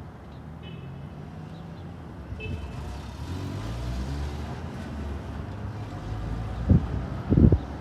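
Steady low rumble, growing a little louder, with two brief high beeps early and two dull thumps near the end.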